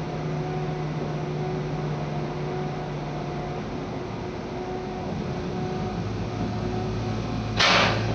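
Train running noise heard from inside the carriage: a steady rumble with a low hum that drops in pitch about five seconds in. A short, loud hiss lasting about half a second comes near the end.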